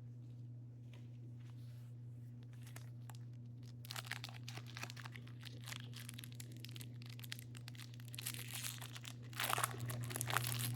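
Trading-card pack wrapper crinkling and being torn open, in scattered bursts starting about four seconds in and loudest near the end, over a steady low hum.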